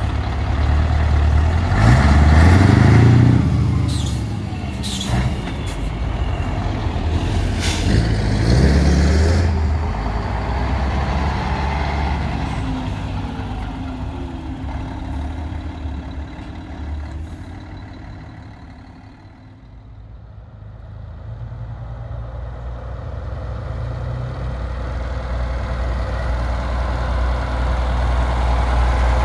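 Classic diesel lorry pulling away, its engine revving up twice with several sharp hisses of air brakes, then fading into the distance; another lorry's engine grows louder near the end.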